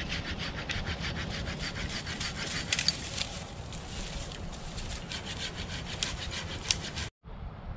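Hand saw cutting through a stick of green wood in quick, even back-and-forth strokes. The sawing breaks off shortly before the end.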